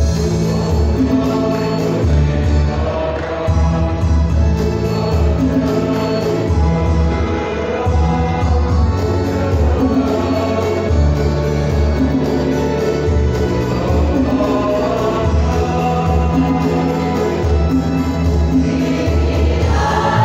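Church choir of mostly women's voices singing a gospel song, with low sustained bass notes beneath the voices.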